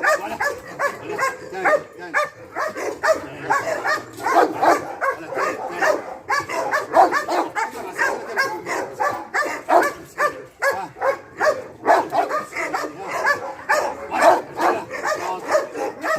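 Dog barking in a rapid, unbroken run of short barks, several a second.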